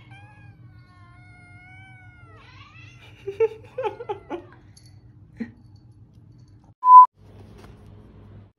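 A cat yowling: long, faint, wavering drawn-out cries, then a burst of shorter, louder cries about three seconds in. Near the end a short, loud beep cuts in.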